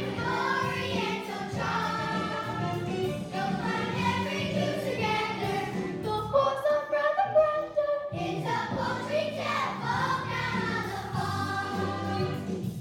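A children's cast singing a musical-theatre number together over accompaniment. About halfway through the backing drops away for a couple of seconds, leaving a single higher vocal line, before the full sound returns.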